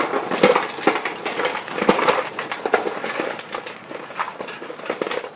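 Burning hardwood lump charcoal pouring out of a chimney starter onto an upturned galvanized steel garbage can: a dense run of clinks and clatters as the coals tumble onto the metal, thinning out toward the end.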